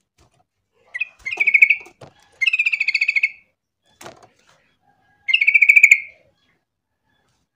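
Yellow-vented bulbul (trucukan) calling: three loud, bubbling chattering phrases of about a second each, with a short note before the first, and a single sharp click between the second and third.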